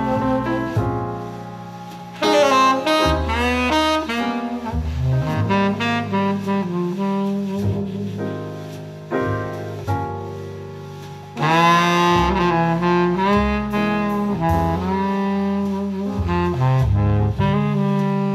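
Slow, moody jazz tune led by tenor saxophone over a bass line, played back through homemade loudspeakers in a room. The sax enters louder with new phrases about 2 seconds in and again past the middle.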